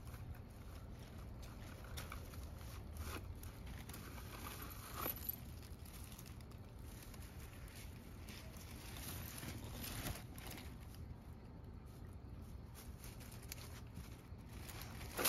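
Faint rustling and crackling of dry grass and dead leaves as a cat noses and pokes through them, with a few louder crackles, over a steady low rumble.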